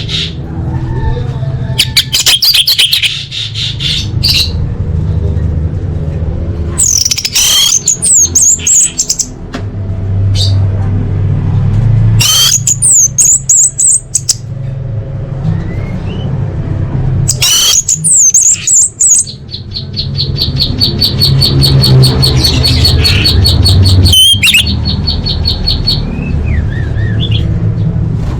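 Orange-headed thrush singing loudly in separate bursts of rich, sliding whistled phrases, with one long, fast, even trill toward the end, over a steady low hum.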